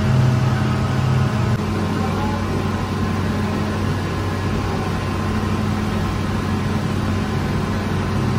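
Bakery machinery running with a steady hum made of several constant low tones; one of the low tones drops away about a second and a half in.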